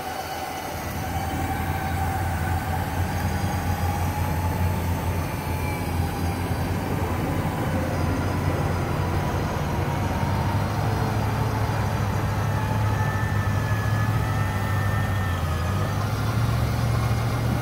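Electric winch, likely a Smittybilt 12,000 lb, on the front of a Ram 1500 pickup, whining steadily as it pulls the loaded truck up a riverbank, over the pickup's engine, whose low hum grows louder in the second half as the driver gives it gas.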